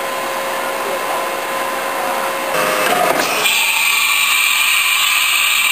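Haas TM-1 CNC tool room mill running with a steady mechanical hum. About two and a half seconds in the sound changes and turns into a louder, higher whine.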